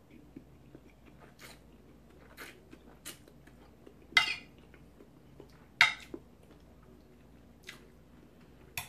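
Chewing and mouth sounds of someone eating pasta salad, with a metal fork clinking and scraping on a plate. Scattered short clicks, with two louder sharp sounds about four and six seconds in.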